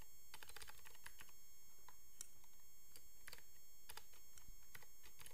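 Typing on a computer keyboard: a quick run of keystrokes in the first second, then single keystrokes every second or so.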